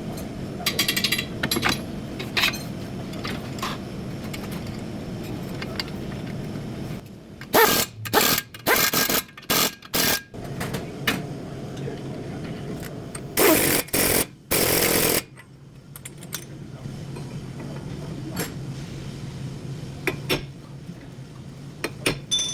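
Steady low hum of a car running, broken twice by clusters of loud, sharp noise bursts, one about a third of the way in and one about two-thirds in.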